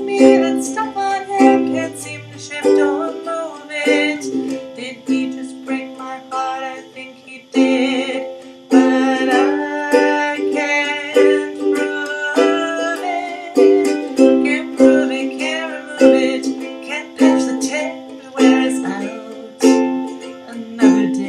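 Ukulele strummed in a steady rhythm of chords, with a woman singing along, over a faint steady hiss from a computer.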